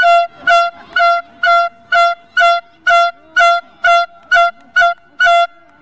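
Electronic beeper sounding about a dozen short, identical high beeps, roughly two a second, then stopping.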